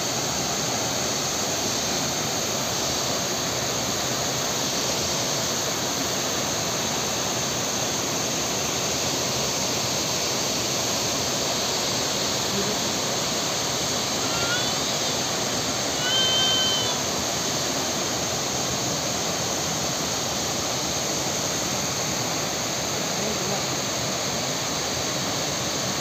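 Corbett Falls: the waterfall's water rushing and splashing down in a steady, even noise. A short high call is heard twice a little over halfway through.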